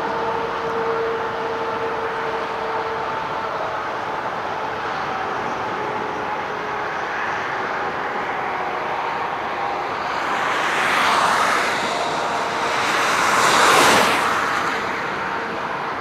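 Distant jet engines of taxiing airliners, a steady hum with faint whining tones, over wind noise. Two swells of rushing noise rise and fall about eleven and fourteen seconds in, the second the loudest.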